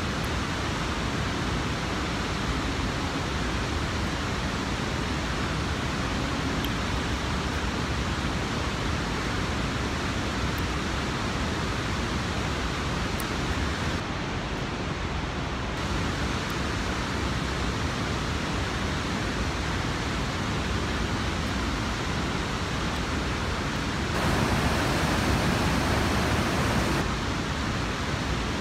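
Steady rushing noise spread evenly from low to high pitch, with no speech heard. Near the end it abruptly grows louder for about three seconds, then drops back.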